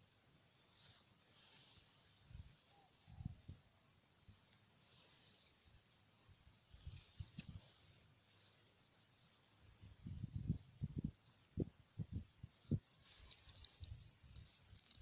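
Small birds chirping faintly: many short, high chirps scattered throughout. From about ten seconds in comes a quick run of low thumps.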